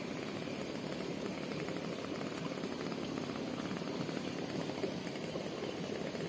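Steady trickling and gurgling of running water in a rice-paddy irrigation ditch.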